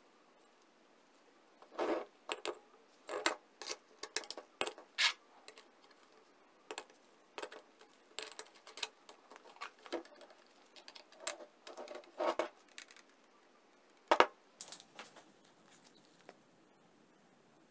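Light metal clicks and clinks from handling an angle grinder's parts as an abrasive disc and its flange nut are fitted onto the spindle by hand. A sharper knock comes about three-quarters of the way through.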